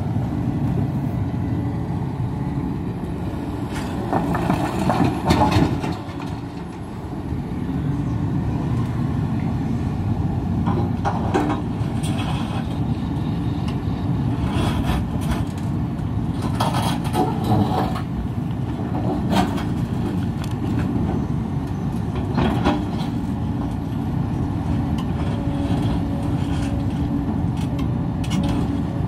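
Heavy diesel engine of a Hidromek HMK 390LC excavator running steadily under load. Intermittent clanks and scrapes of the bucket digging hard rocky ground and rock being dropped, the loudest a few seconds in.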